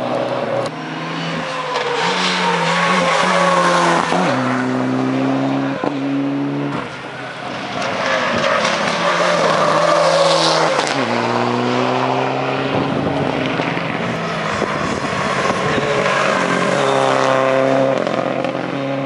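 Turbocharged four-cylinder rally cars at full throttle, the engine note climbing in steps through the gears with a sharp crack at each shift, several times.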